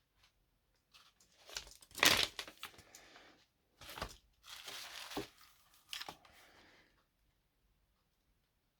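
Packaging being crinkled and torn by hand, in a few short bursts, the loudest about two seconds in, dying away about a second and a half before the end.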